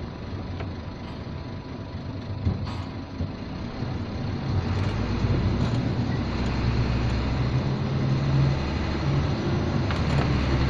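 Hino truck's diesel engine running, heard from inside the cab, with a steady low rumble that grows louder about halfway through. A single click sounds once, about two and a half seconds in.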